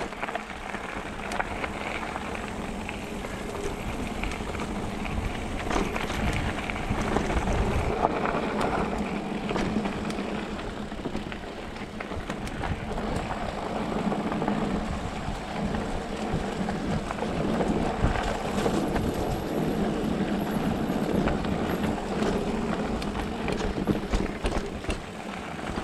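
Specialized Turbo Levo electric mountain bike rolling along a dirt and gravel trail: tyres crunching and the bike rattling over bumps, with wind rushing over the microphone.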